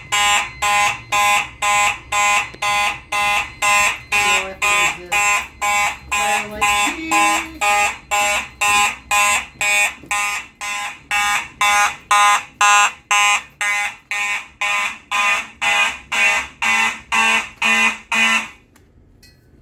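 Fire alarm system sounding in pulses about two a second, the march-time coding, after a smoke detector test put it into alarm. The loud pulsing stops suddenly near the end.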